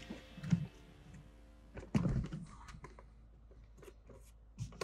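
A few soft thumps and clicks of handling in a car interior, with quiet between them: the strongest about half a second and two seconds in, another near the end.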